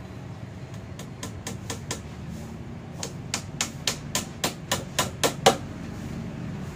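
A quick series of sharp knocks, about four a second: a run of five, then after a pause a run of about ten that grows louder, over a steady low rumble.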